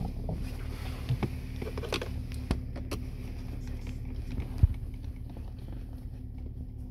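Scattered light clicks and taps of a screwdriver against a screw and plastic console trim as the screw is worked out, the sharpest tap a little past halfway. Under them runs the car's steady low hum.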